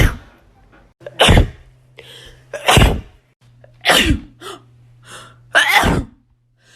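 A person sneezing five times in a row, roughly one loud sneeze every second and a half, with faint breaths between them.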